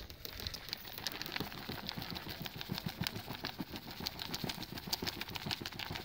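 A lidded bait tub of groundbait mixed with soaked pellets, casters and hemp being shaken up, giving a quick, irregular rattling.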